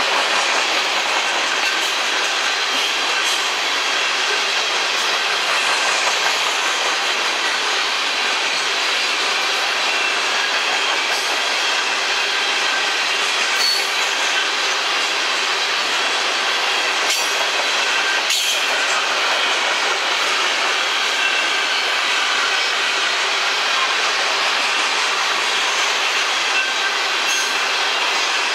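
Covered hopper cars of a CSX freight sand train rolling past: a steady rush of steel wheels on rail with faint, steady squealing tones from the wheels, and a few sharp clicks from about two-thirds of the way in.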